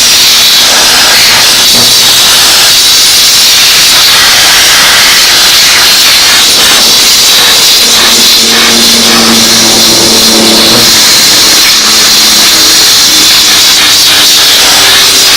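Steam cleaner nozzle blasting steam onto greasy engine parts, a loud steady hiss.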